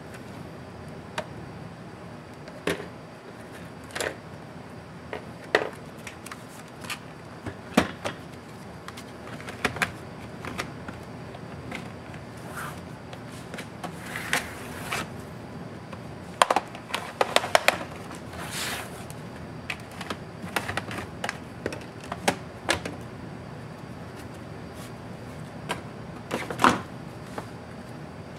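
Bottom cover of an ASUS TUF FX505D laptop being pried off with a plastic card: its plastic clips click and snap loose one after another, with short scrapes of the card along the seam. The clicks come irregularly, every second or two, with a quick run of snaps a little past halfway.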